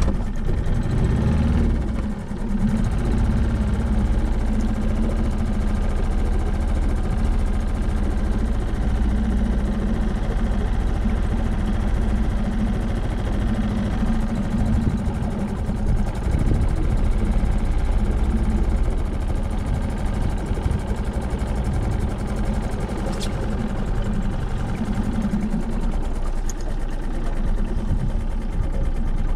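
A small engine running steadily at an even, low speed, with a constant low drone.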